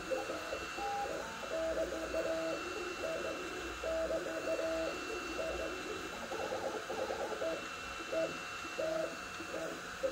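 Sapphire Plus 3D printer printing at 130 mm/s: its stepper motors give short steady tones that jump in pitch every fraction of a second as the moves change, over a steady fan hiss and a thin high whine.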